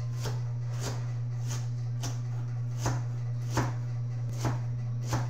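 Kitchen knife chopping vegetables on a plastic cutting board, about eight even chops, a little more than one a second, over a steady low hum.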